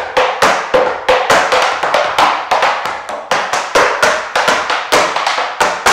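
Metal taps on tap shoes striking a wooden tap board in a quick rhythmic tap-dance combination, several sharp clicks a second in an uneven pattern; the last tap rings out at the end.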